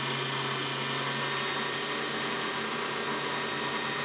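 Optimum benchtop metal lathe running steadily as the tool faces the end of an aluminium bar: an even hum with a higher whine from the spindle drive.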